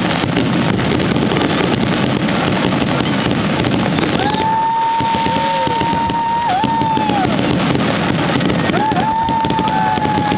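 Fireworks display heard as a steady wash of noise with scattered crackles. Two long held tones sound over it: one about four seconds in lasting some three seconds with a brief dip in pitch, and another starting near the end.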